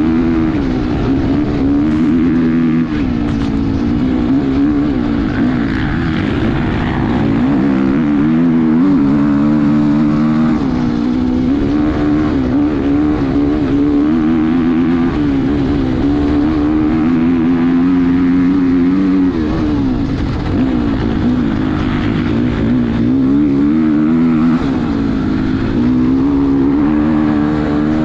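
2019 Husqvarna FC450's single-cylinder four-stroke engine, fitted with an FMF Titanium 4.1 silencer, running hard under race throttle, its revs rising and falling again and again as the rider works the throttle.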